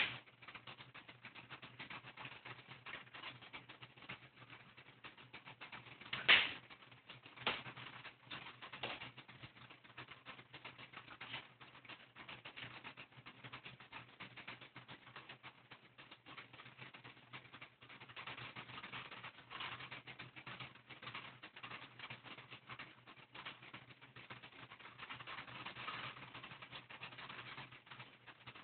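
Window-blind cords and slats clicking and rattling as a cat bats at them: a dense run of light taps, with a louder knock about six seconds in and two smaller ones soon after.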